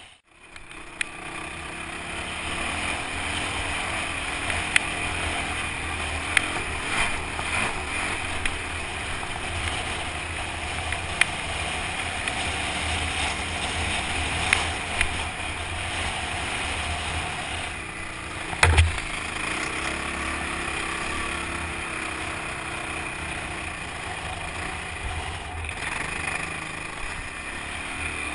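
Off-road vehicle engine running steadily under way over sand dunes, fading in over the first second, with several short sharp knocks from bumps; the loudest knock comes with a low thump about two-thirds in.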